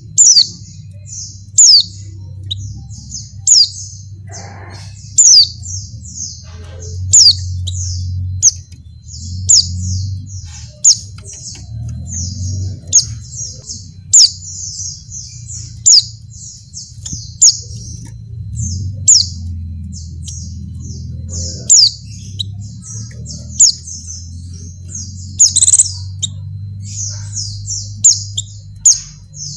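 Female white-eye (pleci) calling: a fast, unbroken run of high chirps, with a loud, sharp downward-sweeping note about every one and a half to two seconds, over a low background rumble. The uploader presents the calls as those of a female in breeding condition calling for males.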